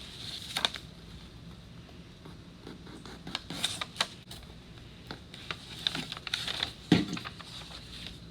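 Paper rustling and scratching with light clicks and taps as a fingernail scores the paper against the rim of a tin can, with one louder knock about seven seconds in.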